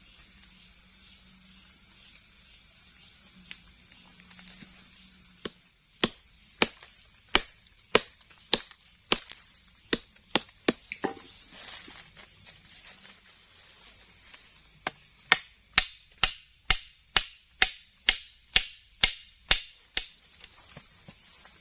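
Two runs of sharp, evenly spaced striking blows, about two a second: around eleven starting about five seconds in, then after a pause another dozen.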